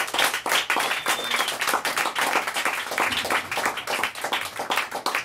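Audience clapping and cheering after a spoken-word performance, with one high whistle from the crowd about a second in.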